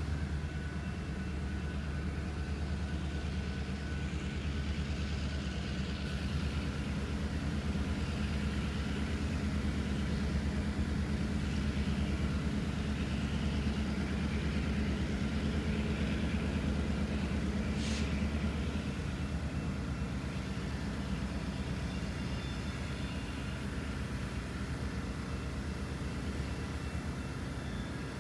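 Diesel locomotive engine running steadily with a low rumble, swelling a little in the middle. A brief sharp click comes about two-thirds of the way through.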